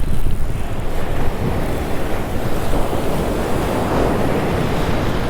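Ocean surf washing on the beach, with wind buffeting the microphone as a steady low rumble; the wash swells to its loudest about four seconds in.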